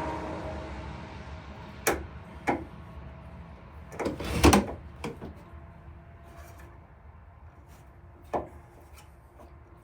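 A few separate knocks and clatters of hand tools being handled against the wooden cupboard: two single knocks about two seconds in, a louder cluster around four and a half seconds, and one more near the end.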